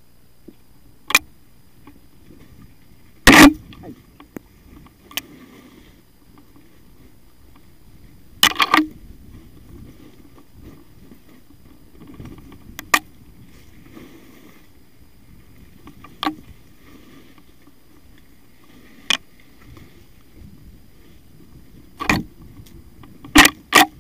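Mountain bike descending a rough dirt trail: a steady low rumble of tyres rolling over the ground, broken by about ten sharp knocks and clacks as the bike hits bumps. The loudest knock comes about three seconds in, and a quick cluster of them comes near the end.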